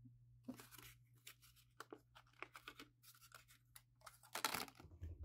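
Clear plastic blister packaging being handled while a Pokémon promo card is taken out of its tray: faint scattered crinkles and clicks, with a louder rustle about four and a half seconds in, over a low steady hum.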